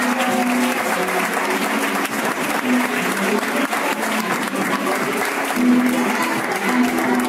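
Many people clapping their hands over flamenco music, the clapping dense and continuous, with held notes of the music coming through underneath.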